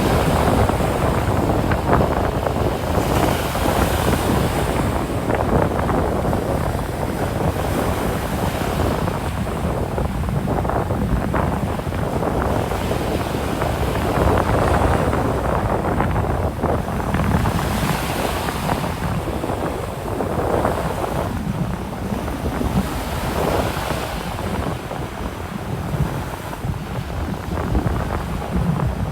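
Ocean surf breaking and washing up the beach in repeated swells, with wind rumbling on the microphone.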